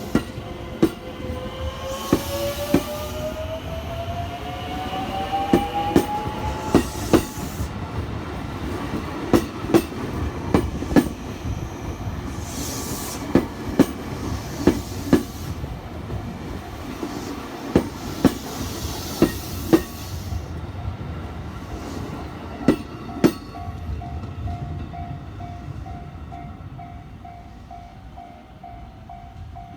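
JR West 207 series electric train rolling over rail joints: the wheels give sharp clacks in pairs, repeating through most of the clip. Early on, the traction-motor whine rises in pitch as the train gathers speed. Near the end the clacks stop and a level-crossing bell rings with a steady pulsing tone.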